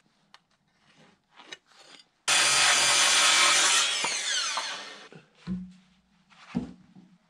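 A handheld circular saw cuts through a rough-cut wooden board. It starts suddenly about two seconds in, cuts for about a second and a half, then winds down with a falling whine after the trigger is released. A couple of wooden knocks follow.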